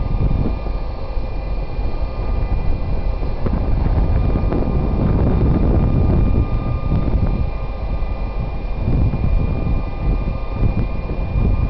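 DB Class 232 'Ludmilla' diesel locomotive rolling slowly past, its V16 diesel engine giving a deep, uneven rumble with a steady high whine above it.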